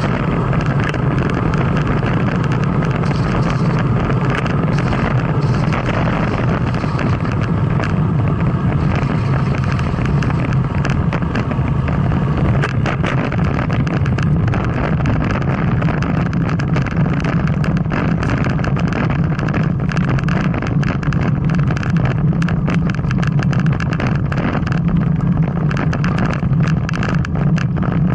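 Steady rumble of wind and road vibration picked up by a camera riding on a road bicycle during a hill climb, with many small rattling clicks throughout.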